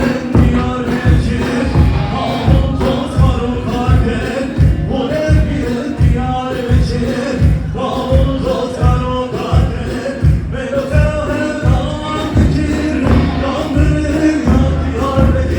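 Wedding dance music with a heavy, steady drum beat about twice a second and a singing melody line over it.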